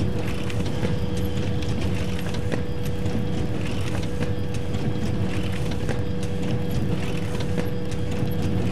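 Photocopier running continuously: a steady mechanical hum with a constant tone, and a brighter swishing rattle that repeats about every two seconds as it cycles.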